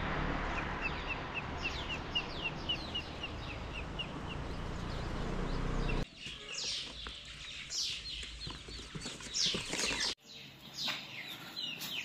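Newly hatched chicks peeping: a stream of short, high, falling cheeps. For the first half it is heard over a steady rushing noise, and after that the cheeps come clearer and more scattered.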